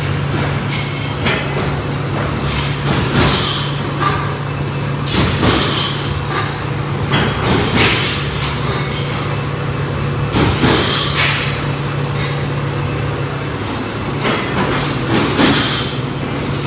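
CNC plasma cutter cutting stainless steel sheet: a steady low hum with a high hiss that swells and fades about every six seconds.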